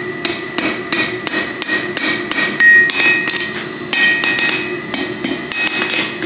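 Blacksmith's hand hammer striking hot steel on an anvil, about three blows a second, each with a metallic ring from the anvil. The bar is stood on end and struck down onto it, bumping up (upsetting) the end into the bottle opener's shape.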